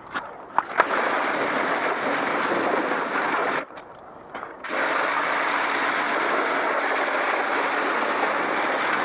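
Pressure washer running and spraying a jet of water onto a bicycle and the gravel around it, a steady loud hiss. It cuts off about three and a half seconds in and starts again about a second later as the trigger is let go and squeezed again.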